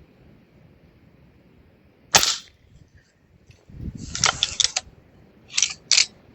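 Gamo Whisper .22 break-barrel air rifle firing once with a sharp crack about two seconds in. About a second later comes a second of metallic clatter, then two sharp clicks near the end, the sound of the barrel being broken open, cocked and snapped shut for the next pellet.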